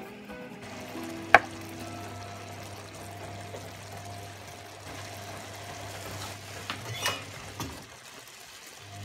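Kitchen cooking sounds over a steady low hum, with a sharp clink about a second and a half in, the loudest sound, and a weaker one near seven seconds.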